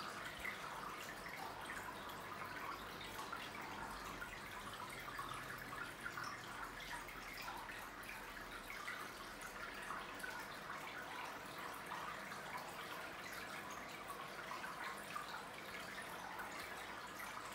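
Aquarium filter's return water trickling and splashing steadily onto the tank's water surface, a fine continuous patter with no change.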